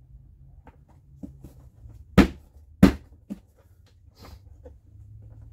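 Plastic engine cover of a 3.6 Pentastar V6 being pressed down onto its mounts: two loud hollow plastic knocks a little over half a second apart, with a few lighter clicks and taps around them. The cover won't seat because the new oil filter beneath holds it up.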